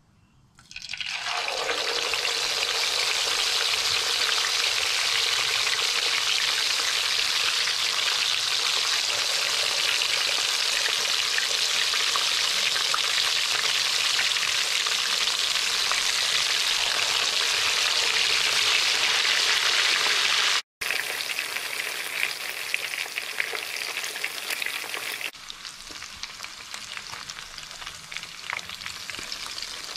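Pieces of simmered chicken going into hot oil in a pan and sizzling loudly as they deep-fry, the second cooking of twice-cooked chicken. The sizzle starts about half a second in, breaks off for an instant about two-thirds of the way through, and comes back quieter, dropping again a few seconds later.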